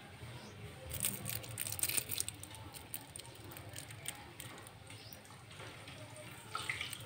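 Small clicks and rattles of craft pieces being picked up and handled on a hard tiled floor, densest for about a second starting a second in, with a few lighter taps later.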